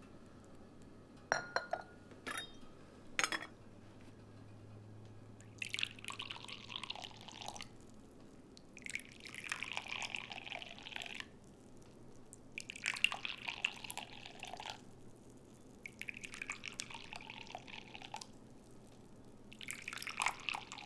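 Brewed tea poured in a thin stream from a porcelain pitcher into small porcelain teacups, five separate pours of about two seconds each, one cup after another. Three short clinks of porcelain come first.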